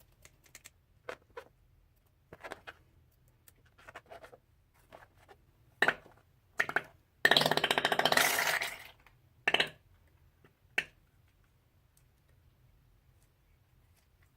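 Slime-making handling sounds: scattered light clicks and taps, and about seven seconds in a loud sputtering squirt lasting about two seconds, as a balloon's contents are squeezed out.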